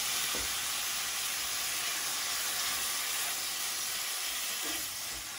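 Soy, honey and garlic sauce sizzling in a hot skillet with sautéed broccoli: a steady hiss that eases a little near the end.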